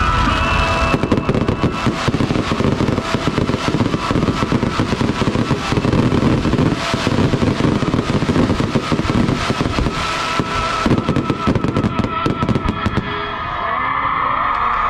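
Fireworks display going off in a rapid barrage of many bangs and crackles close together, stopping about thirteen seconds in.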